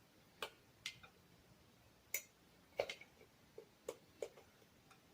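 About a dozen light, irregular metal clicks and taps as the engine cylinder is worked down over the piston and its new piston rings to test the fit.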